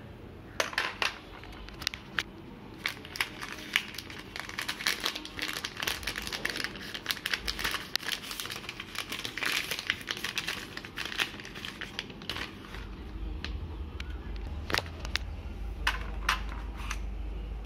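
Thin clear plastic bag of foam darts crinkling as it is handled: irregular sharp crackles, busiest in the middle of the stretch and thinning toward the end, when a low rumble comes in.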